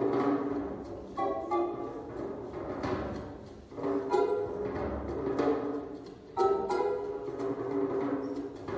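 Instrumental theatre music: phrases of sharply struck notes that ring out and fade, with new phrases entering about a second in, about four seconds in and about six seconds in.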